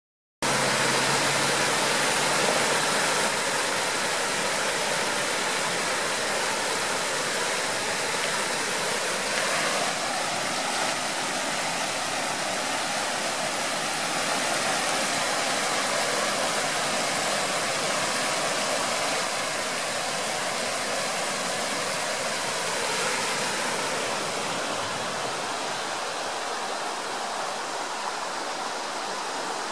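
A shallow mountain river rushing over rocks and small rapids, a steady full-bodied water noise, a little quieter near the end.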